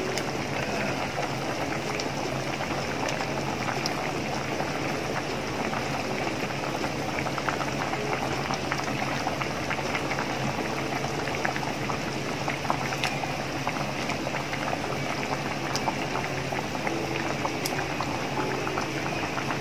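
Kimchi jjigae stew boiling steadily in a pan: a continuous bubbling with fine, irregular crackles.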